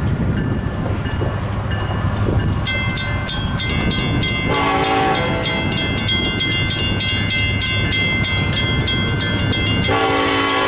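Western Cullen Hayes mechanical crossing bells start ringing about three seconds in, rapid repeated strikes with a ringing tone, and grow denser a couple of seconds later as the second signal's bell joins. Near the end a steady multi-note train horn comes in over the bells.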